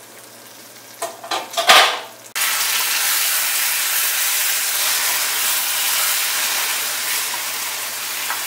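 A brief clatter of utensils on the pan about a second in. From about two and a half seconds, a steady loud sizzle as thick brinjal gravy is stirred with a wooden spatula in a non-stick kadai. The oil has separated and risen to the top after simmering, the sign that the gravy is cooked.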